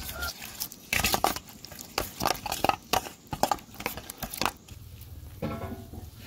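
A thick sesame-chili sauce being mixed in a metal bowl: a run of quick clicks and scrapes against the metal, stopping about four and a half seconds in.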